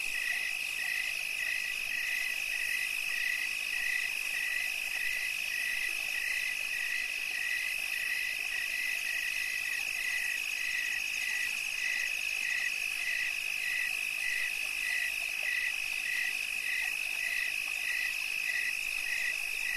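Night chorus of insects and frogs: a steady high trill under a regular pulsing call repeating about one and a half times a second.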